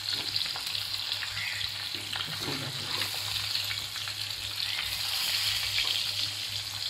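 Cut boiled eggs frying in a mix of oil and butter on a hot tawa: a steady sizzling hiss with small crackles throughout.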